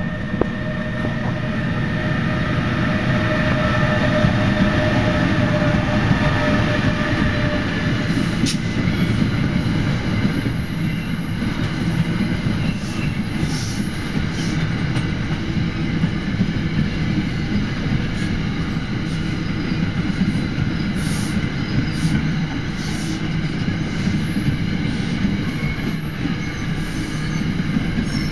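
NJ Transit train of Comet passenger cars, hauled by an ALP-46 electric locomotive, rolling past close by at steady speed: a loud, steady rumble of wheels on rail. A faint steady whine fades out about eight seconds in, and brief high-pitched squeals come now and then in the middle.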